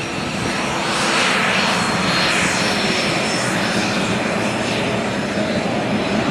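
Airliner engines running loud: a wide rushing noise with a thin steady whine above it, swelling from about a second in.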